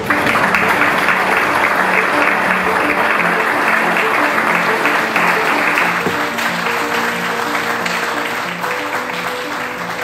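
Audience applauding, the clapping starting all at once and easing off in the second half, with soft background music underneath.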